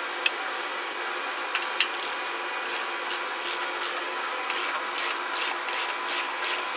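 Hand ratchet running the third member's mounting nuts down onto the axle-housing studs, snugging them but not yet fully tightening. Quick ratcheting strokes, about three a second, start about a second and a half in, over a steady hiss.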